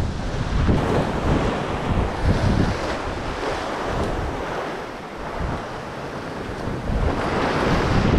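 Ocean swell surging and washing white against a rock ledge, with wind buffeting the microphone. The wash is loudest near the start, eases off in the middle and builds again near the end.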